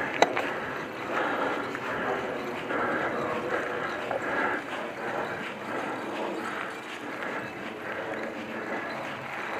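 Mountain bike riding over a dry dirt forest trail: tyre noise and the bike rattling, with a sharp knock near the start and a regular pulsing about twice a second.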